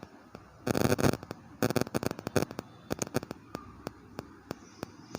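Rustling and clicking of plastic CPVC pipe fittings and their packaging being handled. There are two denser bursts of crackling about a second and two seconds in, then scattered single clicks.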